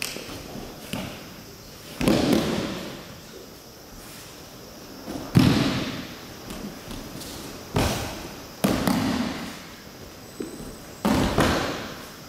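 Bodies landing on tatami mats in aikido breakfalls as partners are thrown: a series of heavy thuds, five loud ones a couple of seconds apart after two lighter ones at the start, each trailing off with a short echo in the hall.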